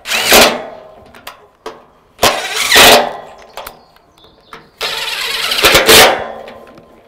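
DeWalt XR cordless impact driver run in three bursts, tightening bolts into the aluminium pergola beam and post corner; the third burst is the longest.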